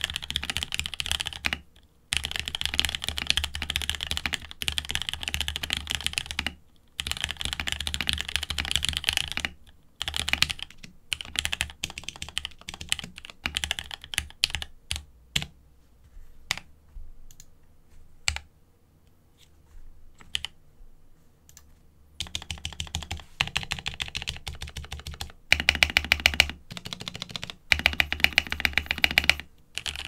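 Mechanical keyboard with spray-lubed Gateron Red linear switches in an acrylic GamaKay K66 case, typed on over a deskmat. Steady runs of typing give way about a third of the way in to scattered single keystrokes with pauses, then fast, louder rolls of keys mashed across the home and top rows from about two-thirds in.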